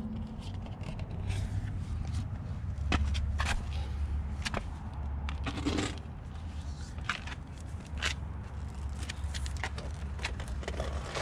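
An alloy car wheel being pulled off the hub and lug studs: a scatter of short metallic clicks, scrapes and knocks over a steady low rumble.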